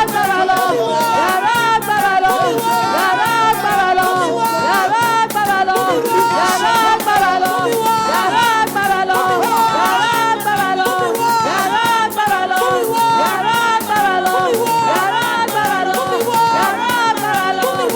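Music with a melody over a fast, steady rattling percussion beat.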